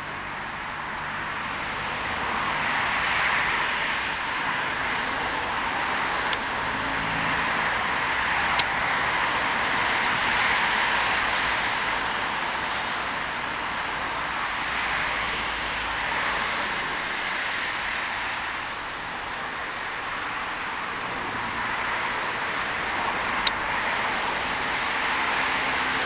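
A small stream running: a steady rushing hiss that swells and eases slowly, with three brief sharp clicks scattered through it.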